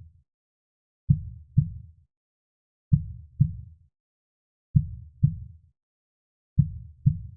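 Heartbeat in a slow, even lub-dub rhythm: four pairs of low thumps, the pairs coming about every 1.8 seconds and the second thump of each pair about half a second after the first, with silence between.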